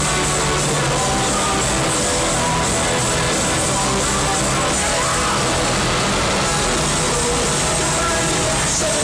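Live rock band playing loud with electric guitar, bass guitar and drums, heard through a phone's microphone in an arena.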